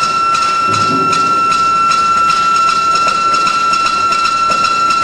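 Urschel DiversaCut 2110A industrial dicer running while cutting potatoes into cubes: a steady high whine with regular, even clicking.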